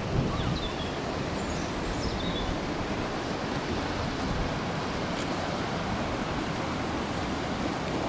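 Steady wind buffeting the microphone, a rough even rumble with no engine or voice in it.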